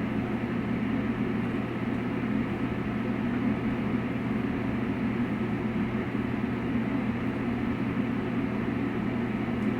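Steady low hum and rush of a ventilation fan running without change.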